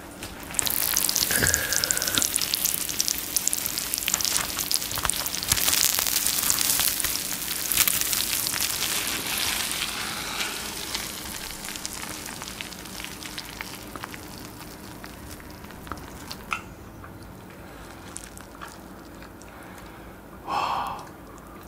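Melted raclette cheese sizzling and crackling fresh from the grill as it is scraped off the half wheel onto noodles. The sizzle is loudest for the first ten seconds or so, then fades away.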